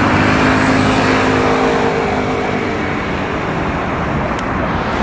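City street traffic: cars going by in a steady wash of road noise, with one vehicle's engine hum standing out for the first three seconds or so before fading.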